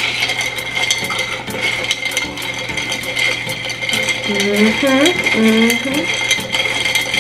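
Ice clinking and rattling against a glass as an iced drink is stirred, a quick irregular run of light clicks.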